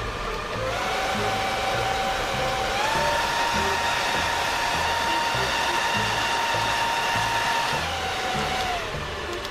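Workman WindCore cooling-jacket fan running, a whine over rushing air. It steps up in pitch twice in the first three seconds as the speed is raised to full, then steps back down twice near the end.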